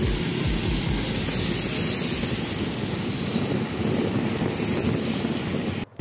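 Steady rush of wind on the microphone with road and traffic noise while riding a mountain bike along a road; the sound cuts out briefly just before the end.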